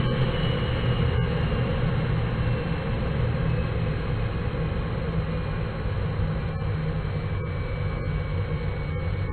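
Swiwin 170B model jet turbine whining, heard from on board the RC jet in fast flight, over a loud steady rushing noise. The whine sinks slightly in pitch over the first few seconds as the engine spools down.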